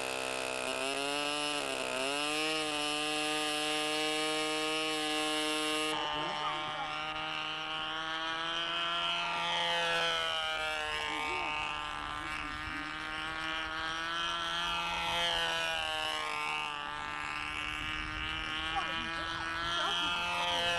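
Radio-controlled model airplane's small engine running at a high, steady buzz at full throttle. About six seconds in, its pitch starts swinging up and down again and again as the plane flies past.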